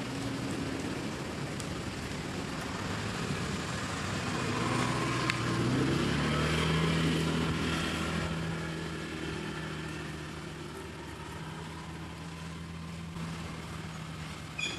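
Motor vehicle engine running out of view, its note rising about five seconds in and loudest a few seconds later before easing off, as a vehicle passes.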